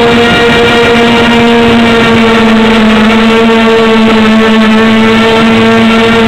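A small 250 mm quadcopter's electric motors and propellers, heard from its onboard camera, humming loud and close at a steady pitch as it hovers.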